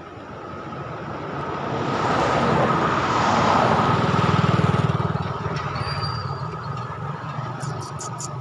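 A motor vehicle passing close by on the road: its engine and tyre noise build up, peak about four to five seconds in, then fade away. A few faint short ticks near the end.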